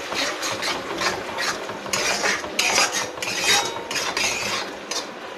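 Metal spatula scraping and stirring a thick onion-tomato masala with curd around a kadai: a run of quick, irregular scraping strokes, two or three a second.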